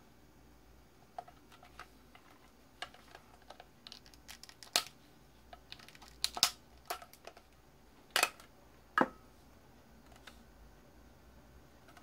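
Irregular clicks and knocks from a Dyson SV10 cordless vacuum's motor unit being taken apart by hand, with a few sharper knocks between about five and nine seconds in.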